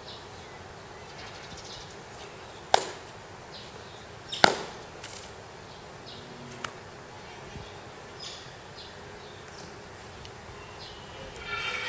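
Two sharp cracks about a second and a half apart, the second louder, from explosive power releases (fajin) in a Chen-style taijiquan form: the snap of the practitioner's loose uniform and the strike of the move.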